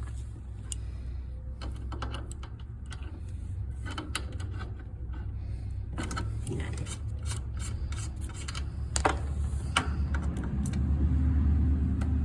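Scattered clicks, taps and rattles of fittings and tools being handled at an HVAC outdoor unit, over a steady low hum from the running system that grows louder near the end.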